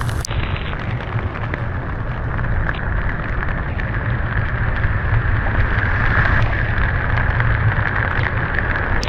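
Steady rushing roar of Niagara Falls, mixed with rain, swelling slightly partway through.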